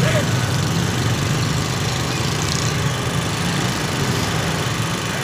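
A steady, even engine drone from idling motor traffic, a low hum with street noise over it.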